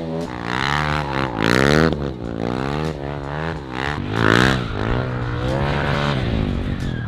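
Motorcycle engine revved hard and let off again and again, its pitch sweeping up and down, with tyre scrub and skid noise from drifting and burnouts. The loudest rushes of tyre noise come about one and a half seconds in and again about four seconds in.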